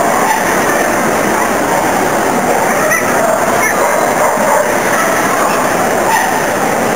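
Steady crowd hubbub filling a large exhibition hall, with a dog barking now and then.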